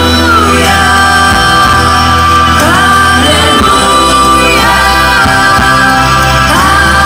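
Loud amplified live pop performance: a female lead vocalist and a girls' choir singing held notes with slides between them, over backing music with a steady bass line.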